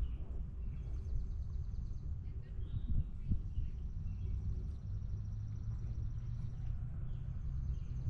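Outdoor nature ambience: a steady low rumble, with a high, pulsing trill that comes and goes and a few scattered bird chirps.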